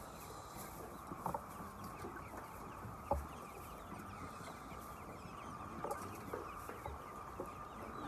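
A large flock of chickens clucking together in a steady, overlapping chorus, with a few brief louder calls standing out.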